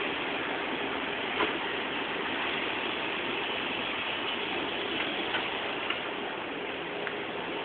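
Steady hiss of outdoor background noise with a few faint ticks scattered through it.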